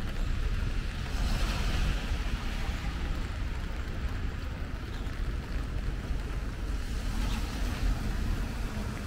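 Rainy city street ambience: a steady low traffic rumble with the hiss of car tyres on wet pavement, swelling as a vehicle passes about a second in and again near the end.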